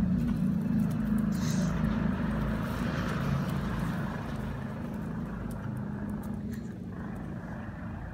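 Low motor rumble with a steady hum, loudest at first and slowly fading away.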